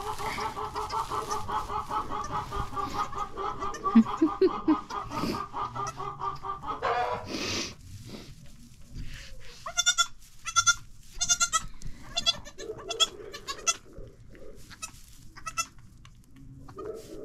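Goat bleating: one long wavering call lasting about seven seconds, then, after a pause, a run of short calls.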